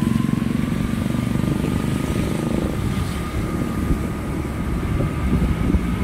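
A motorbike's engine running steadily while riding, with a thin, steady whine above the low engine hum. The hum eases a little about three seconds in.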